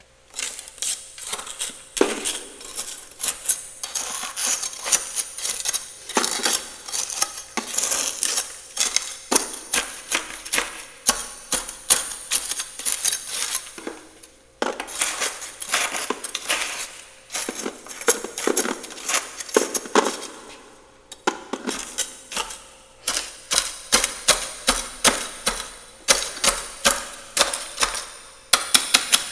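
Frost being scraped off the inside of a freezer in quick, repeated strokes, several a second, with crisp scratching and clicking. The scraping pauses briefly about halfway through and again about two-thirds of the way in.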